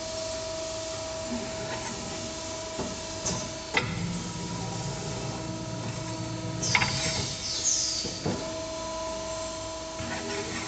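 Eight-tube evaporator tube bending machine at work: a steady hum with a constant tone, a sharp clack about four seconds in and another about eight seconds in, and a heavier low drive noise between them. Short bursts of air hiss, from its pneumatic cylinders, come around seven seconds.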